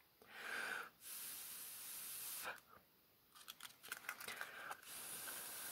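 Faint hiss that cuts in and out, with a few soft paper rustles and clicks about midway as hands shift on a folded paper rosette.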